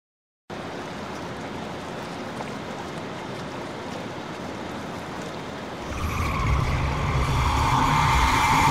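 A steady rushing noise that starts suddenly after a moment of silence and grows louder about six seconds in, where a low rumble and a higher droning note join it.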